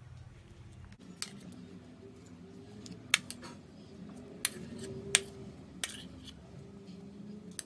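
A metal spoon clinking against a ceramic bowl and a glass dish as chopped fruit is scooped out and spread: about six sharp clinks at irregular intervals.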